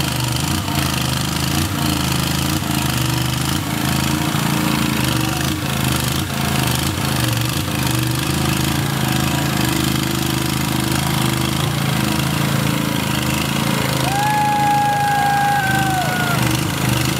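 Custom monster lawn mower's engine running steadily as its big lug tires churn through pond water. A long whistle sounds near the end, held and then dropping in pitch.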